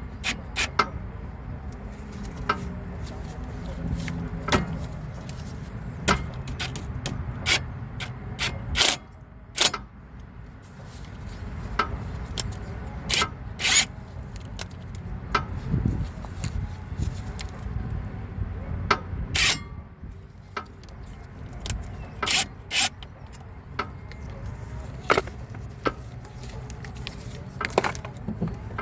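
Hand tools on a car's brake assembly: scattered sharp metallic clicks and knocks at irregular intervals, over a steady low rumble.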